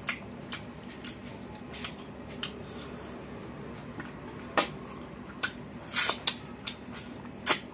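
Close-up eating sounds: a man chewing a handful of rice with wet mouth clicks and lip smacks, a dozen or so irregular clicks, the loudest about four and a half and six seconds in.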